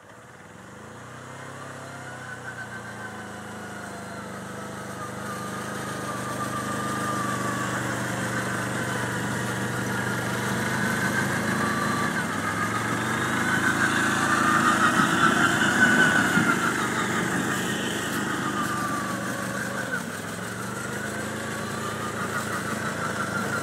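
Arctic Cat 700 Diesel ATV's two-cylinder diesel engine running as the quad drives over snow. It grows louder as it comes closer and is loudest about fifteen seconds in, then dips briefly near the end.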